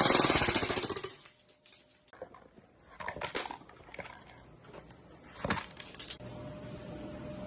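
AAP-01 airsoft pistol firing a rapid full-auto burst of clicking shots for about a second. Scattered metallic clicks and rattles of the gun being handled follow.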